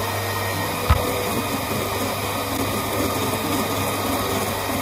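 Electric stand mixer running steadily at medium speed, its whisk beating eggs in a stainless-steel bowl, with a steady motor hum. A single sharp knock about a second in.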